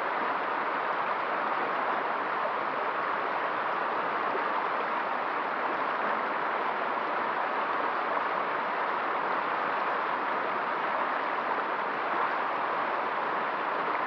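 Fast-flowing river rushing over shallow rapids, a steady, unbroken sound of churning water.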